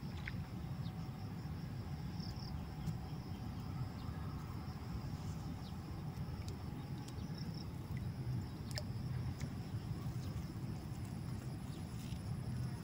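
Riverbank ambience: a steady high drone of insects over an even low rumble, with a few faint scattered clicks.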